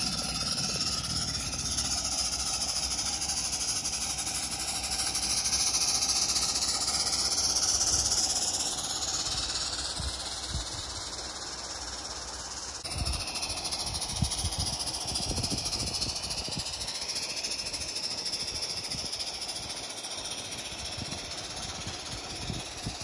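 Steady steam hiss from a G-scale live steam locomotive working up a 4% grade, louder for a few seconds around the middle.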